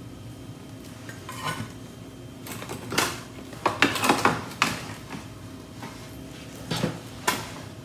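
A metal utensil scraping and knocking against a metal baking sheet as a baked calzone is pried loose and slid off the pan: a scattering of short scrapes and clatters, loudest about three to four seconds in.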